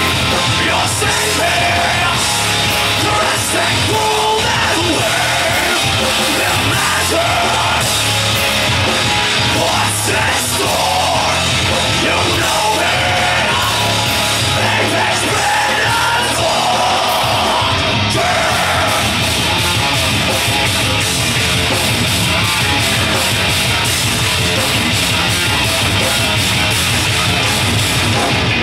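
Live heavy metal band playing loud and without a break: distorted electric guitars, bass guitar and drums under harsh screamed vocals.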